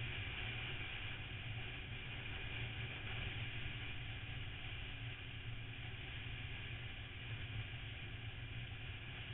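Vehicle under way at a steady speed: a constant engine drone mixed with wind and road noise on the onboard camera's microphone.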